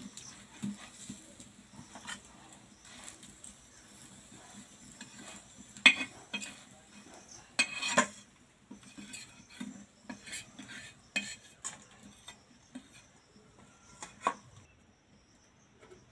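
A metal spatula scraping and clinking against a flat metal griddle and a steel bowl as fried fritters are lifted off and the griddle is scraped clean. There are sharper clanks about six and eight seconds in and again near the end.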